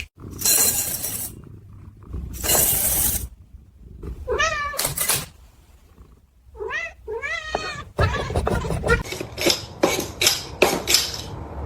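A domestic cat meowing, about three short calls that rise and fall, around the middle. They come between loud noisy bursts before them and a run of sharp knocks and clatter near the end.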